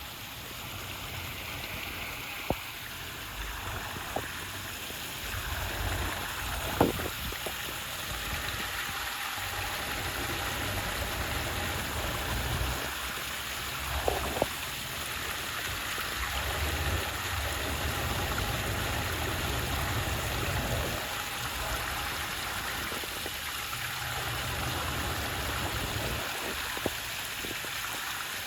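Waterfall: a steady rush of falling water, with a low rumble that swells and fades and a few sharp clicks here and there.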